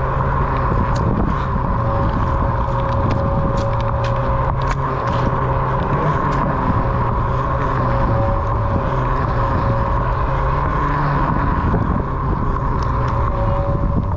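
Onewheel XR electric board riding along: a steady hub-motor whine with tyre and wind rush, broken by scattered sharp clicks, mostly in the first few seconds and again near the end.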